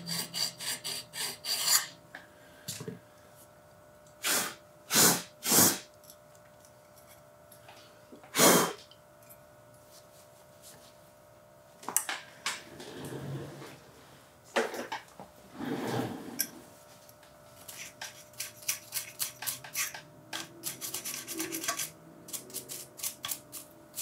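Hand stone rubbed over the aluminium fitment tabs on the front of an LMT MARS-H upper receiver, taking down material so the tight takedown pins will fit. It goes in quick runs of short strokes broken by pauses, with a few louder single strokes in the first ten seconds.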